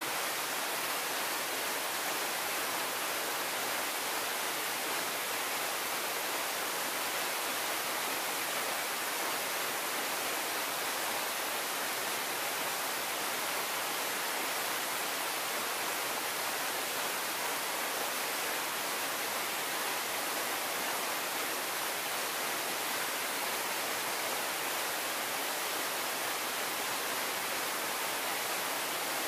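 A twin waterfall plunging from a rock ledge into a pool gives a steady, even rushing hiss with no breaks.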